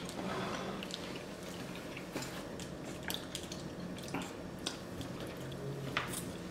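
Mouth sounds of eating noodles: scattered soft smacks and clicks as strands of noodles are drawn into the mouth and chewed.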